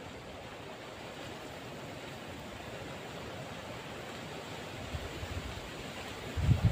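Steady, even outdoor hiss with no distinct source, then a few loud, low, muffled bumps near the end.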